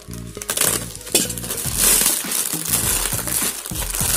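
Plastic courier mailer being slit with a utility knife and pulled open, crinkling and rustling in loud spells with a few sharp clicks. Background music runs underneath.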